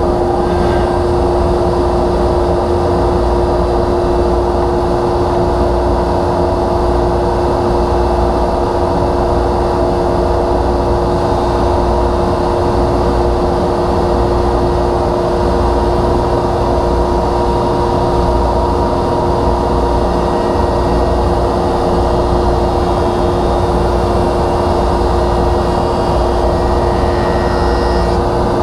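Delta DJ-20 jointer running at full speed with a steady hum while a board is fed across its cutterhead.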